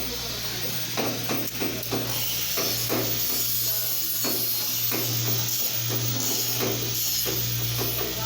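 A steady low electrical hum that swells and fades, with irregular clicks and knocks over it and a high hiss.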